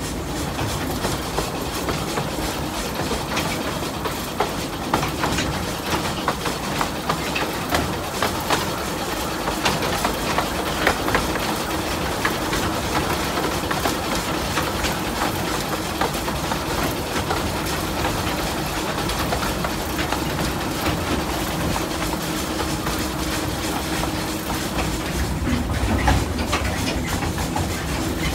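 Narrow-gauge railway train running, heard from aboard: a steady rumble of wheels on the track with frequent irregular clicks and rattles from the rail joints and carriage.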